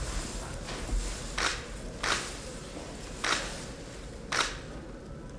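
Four sharp clicks, roughly a second apart, over faint room noise.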